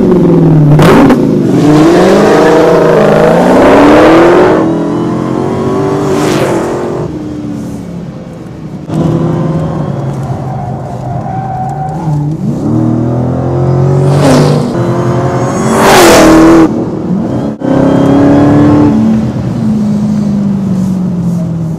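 Supercharged 6.2-litre HEMI V8 of a Dodge Charger SRT Hellcat revving hard and accelerating, its pitch climbing and dropping again and again through gear changes. There are several loud swells in the engine noise along the way.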